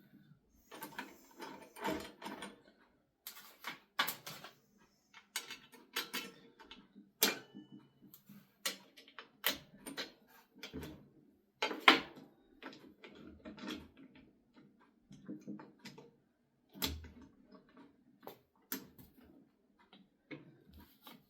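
Irregular clicks, clinks and knocks of tools and metal parts being handled while the nuts on an angle-grinder chop-saw rig are adjusted, the loudest knock about twelve seconds in.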